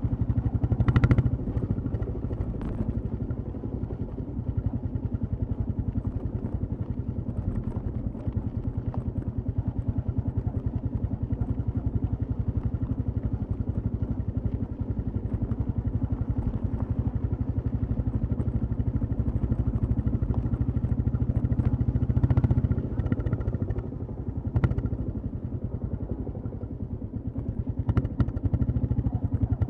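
Royal Enfield Classic 350's single-cylinder engine and exhaust running steadily under way, with a few short knocks and brief louder moments.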